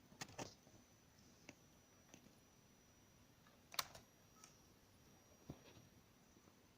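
Near silence with a few faint, scattered clicks, the loudest a little under four seconds in, over a faint steady high-pitched whine.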